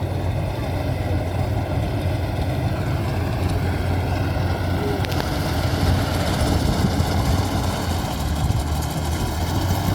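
Maxxi Bimo 102 combine harvester running steadily, its engine giving a constant low hum under an even mechanical noise. A higher hiss grows a little louder about halfway through.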